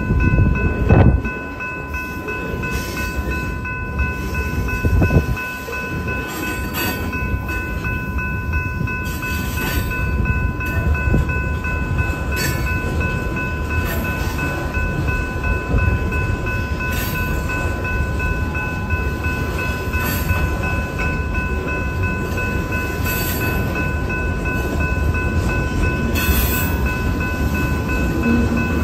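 Freight cars of a BNSF mixed freight train rolling past at speed: a steady rumble of steel wheels on rail, with irregular clanks and a louder bang about a second in. Over it the grade-crossing bell rings without a break as a steady high tone.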